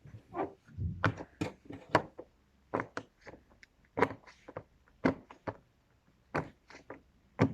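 Bubbles of a glow-in-the-dark push-pop poppet fidget toy being pressed in and popping, an irregular series of short pops about two a second.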